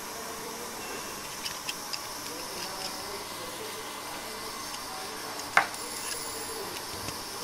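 Steady background hiss with a few faint ticks and one sharper click about five and a half seconds in: the small handling noises of wire being wound by hand around a model tree's trunk blank.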